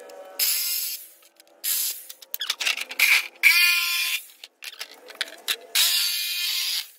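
Handheld electric jigsaw cutting plywood blockboard in about four short bursts, its motor whining and spinning up at the start of each cut, with pauses and small knocks between.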